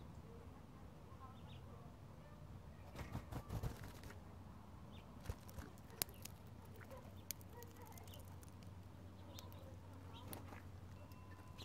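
Faint outdoor background with a low steady hum, broken by scattered sharp taps and clicks: a cluster about three seconds in and single ones later, from a small finch landing and pecking at seed on a pebble-lined feeder tray.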